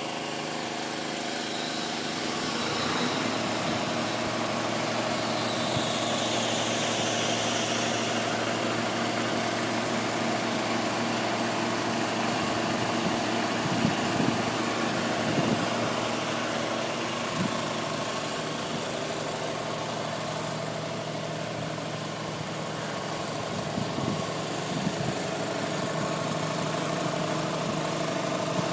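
Small portable generator engine running steadily at a constant speed, with a few light knocks along the way.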